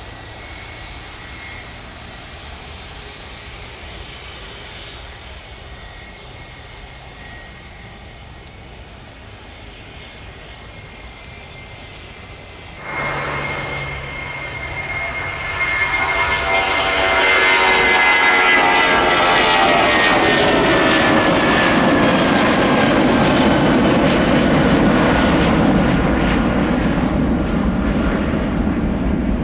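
Airbus A319 jet engines. For the first stretch they run steadily at a moderate level with a thin high whine, with the airliner on the ground. About 13 seconds in the sound jumps suddenly, then builds to a much louder takeoff roar as the jet lifts off and climbs away. A heavy rumble runs under a high whine that slides steadily down in pitch as it passes.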